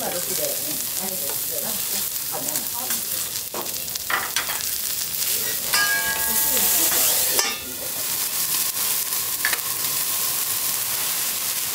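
Fish and greens sizzling on a steel teppanyaki griddle, with a metal spatula scraping the plate in the first few seconds. About six seconds in the hiss swells as liquid is thrown onto the hot steel, then a clank as a steel dome lid is set down, and the sizzling carries on under the lid to steam the food.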